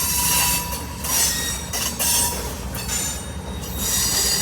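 A train running past: a steady low rumble under a rushing hiss that swells and fades about once a second.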